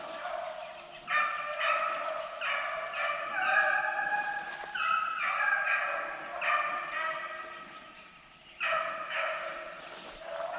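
Several hunting hounds howling and bawling together in long, drawn-out, overlapping cries, with a short lull near the end.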